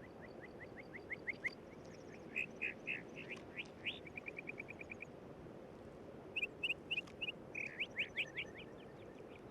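Bird calls: several runs of short, quick chirping notes, some rising in pitch, with a fast even trill about four seconds in and another burst of calls after a pause near the middle.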